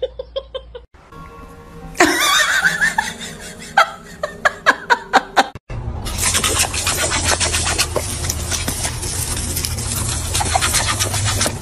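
Garden hose spray nozzle hissing steadily as a jet of water starts up about halfway through, with a dog snapping at the spray.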